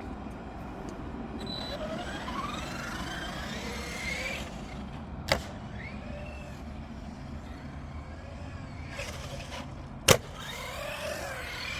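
Electric motors of radio-controlled monster trucks whining as they accelerate, rising in pitch twice. There are two sharp knocks, about five seconds in and just after ten seconds; the second is the loudest.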